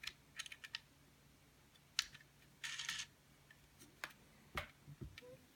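Small metal washers and fasteners clicking and clinking as they are handled and fitted onto a camera mount. The clicks are scattered, the sharpest about two seconds in, and a brief scraping rustle follows.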